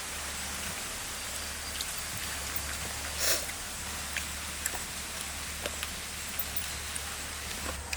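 Steady outdoor background hiss with a low hum underneath, scattered faint clicks, and one short, louder rustling burst about three seconds in.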